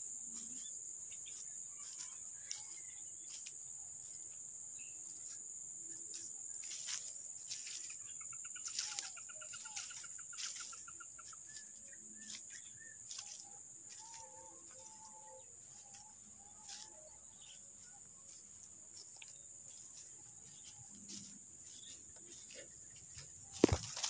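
Steady high-pitched drone of insects, with a bird's rapid trill about nine seconds in and a few short bird calls a little later. Scattered clicks and rustles run through it, and there is a sharp knock near the end.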